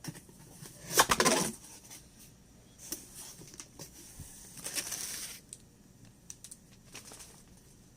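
Packaging being handled during an unboxing: two bursts of rustling and crinkling, the louder about a second in and another around five seconds in, with small clicks and taps between.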